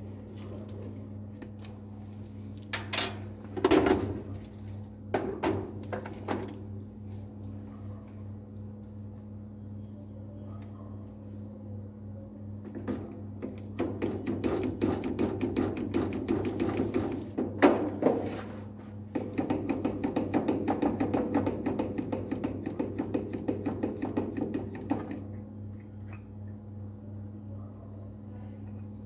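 Steady hum of a biosafety cabinet's blower, with scattered clicks and knocks of a micropipette and sample tubes being handled. Around the middle come two stretches of rapid rattling patter, each several seconds long.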